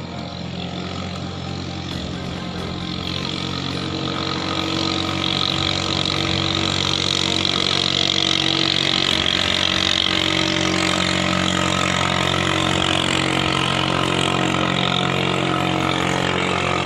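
Katinting longtail boat engine, fitted with a long propeller shaft, running steadily at high speed. It grows louder over the first several seconds and then holds at a constant pitch.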